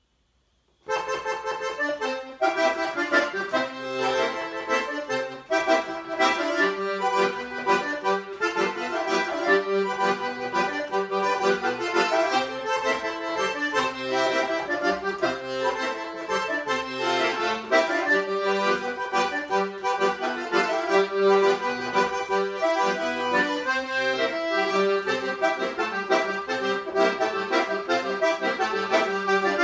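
Solo piano accordion playing a vaneira, a southern Brazilian gaúcho dance tune, with melody over chordal accompaniment; it starts about a second in.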